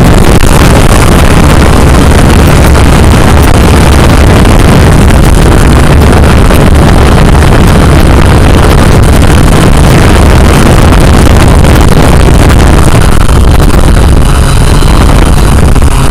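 Quadcopter drone's motors and propellers, recorded loud and steady by its own onboard camera as it descends to land, with wind buffeting the microphone. Thin whining tones come in near the end as it reaches the ground.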